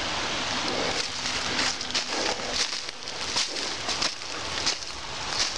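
Footsteps crunching through dry fallen leaves at a steady walking pace, a crisp rustle with each step.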